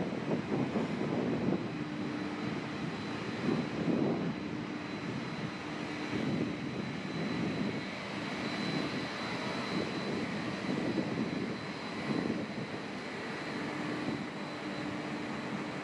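Wind buffeting the microphone in irregular gusts, over a steady mechanical hum with a faint thin high whine.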